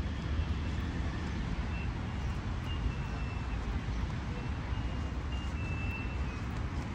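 Steady rumble of road traffic, with a few short high-pitched chirps over it.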